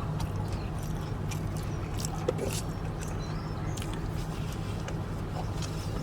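Steady low hum of a truck idling, heard from inside the cab, with a few faint clicks.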